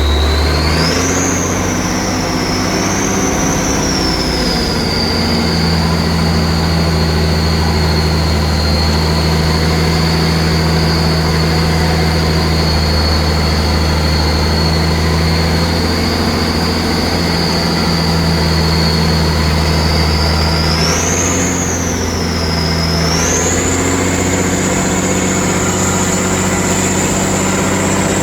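Army truck engine running with its turbocharger whistling: a high whine over a steady low engine drone. The whistle rises and dips in the first few seconds, holds steady through the middle, then climbs again about two-thirds of the way through and stays higher to the end.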